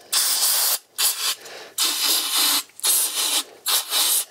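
Aerosol can of carb cleaner spraying in a series of hissing bursts, a few long ones and then several shorter ones, to clean a greasy fuel-injection warm-up regulator.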